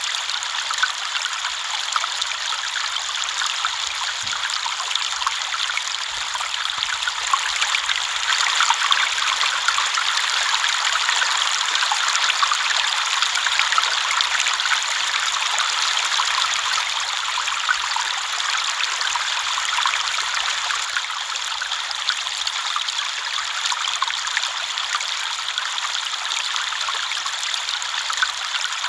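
River water flowing steadily: a continuous rushing and trickling with many small splashes, bright and with little low rumble.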